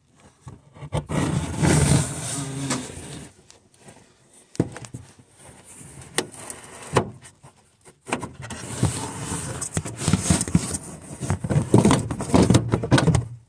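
Round plastic dust cover on the back of a headlight housing being gripped, twisted and pulled off by hand: plastic scraping and rubbing with scattered sharp clicks, in two longer stretches with a quieter pause between.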